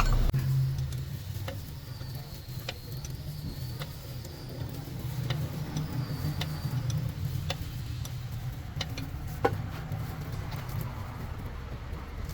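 Repair work on a truck wheel: scattered light clicks and taps of hand tools on metal over a steady low hum.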